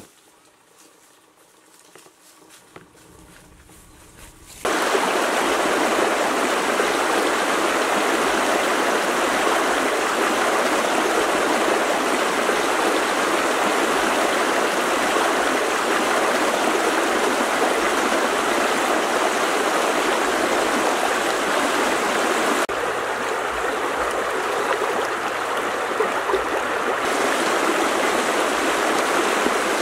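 Shallow stream running over rocks, a steady rushing of water that starts suddenly about four and a half seconds in after a quiet opening.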